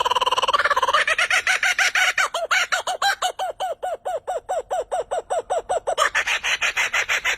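A bird calling: a buzzy trill that breaks, about a second in, into a fast, even series of short rising-and-falling notes, about six a second.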